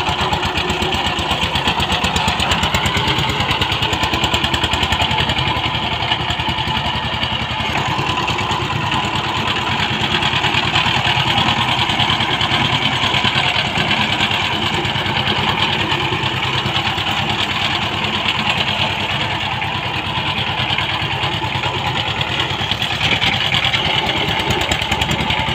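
Power tiller's single-cylinder diesel engine running steadily under load as the tiller works through a wet paddy field, with an even, rapid firing beat.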